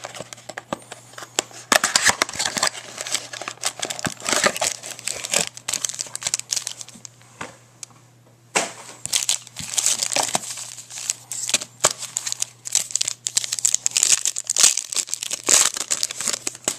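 Plastic wrapping on a trading-card mini box crinkling and tearing as it is pulled open by hand, in two spells with a short pause about six to eight seconds in.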